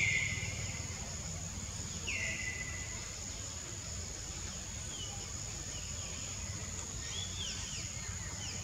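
Outdoor forest ambience: a steady high insect drone, with a low rumble underneath. Over it come short bird calls that drop in pitch, the loudest right at the start and another about two seconds in, and a few quick chirps near the end.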